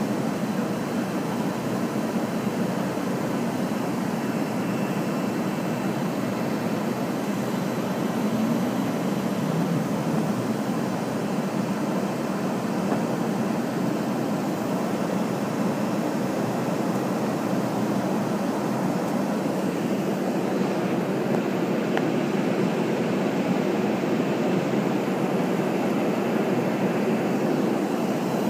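Steady cabin noise inside a McDonnell Douglas MD-83 airliner climbing after takeoff, heard from a forward window seat: an even low rumble of airflow and the tail-mounted Pratt & Whitney JT8D engines.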